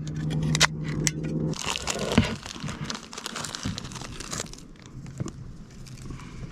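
Plastic seasoning packet crinkling and rustling for about three seconds, starting about a second and a half in, while laab seasoning powder is shaken out of it. Before that, a steady low hum runs and stops.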